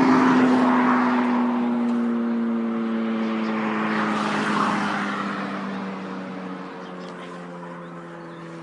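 Kawasaki ZX6R inline-four engine through an M4 GP slip-on exhaust holding a steady high note that slowly drops in pitch and fades. Two rushes of passing car traffic swell over it, about a second in and again around four and a half seconds.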